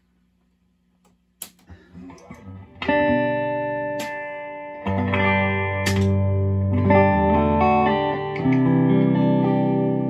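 Guitar played through a hand-built Weber 6A20 Deluxe Reverb clone tube amp, on the vibrato channel with the bright switch off. After a click and a few plucked notes, four chords are struck, each left to ring, the first about three seconds in.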